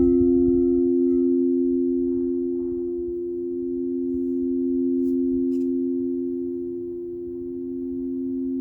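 Singing bowl ringing on in two low steady tones that slowly swell and fade; its higher overtones die away within the first second or two.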